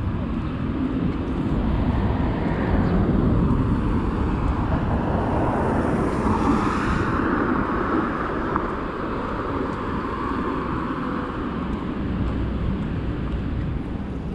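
Road traffic on a multi-lane street, a steady rush of passing cars that swells as vehicles go by, loudest about six to seven seconds in, then eases off.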